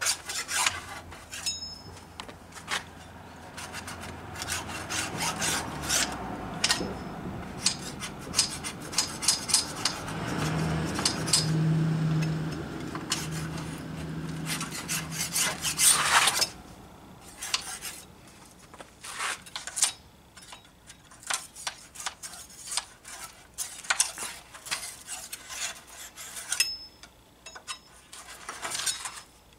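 Hand scraper scraping and clicking in short, irregular strokes between the wooden slats of a bench, clearing out leftover finish and debris after sanding. A low hum swells and fades in the middle.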